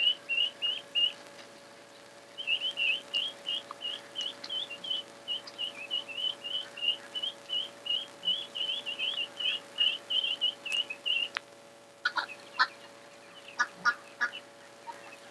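A bird chirping over and over, short high notes about three a second, breaking off briefly a second in and stopping after about eleven seconds. Then come a few sharp clicks over a steady faint hum.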